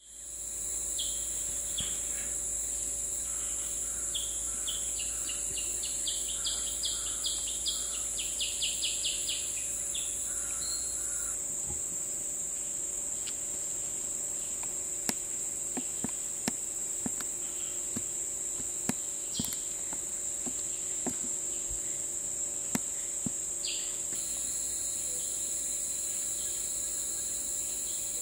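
Rainforest insect chorus: a steady, high-pitched drone of calling insects. Over the first ten seconds another caller repeats short high notes that speed up into quick runs, and sharp clicks are scattered through the middle.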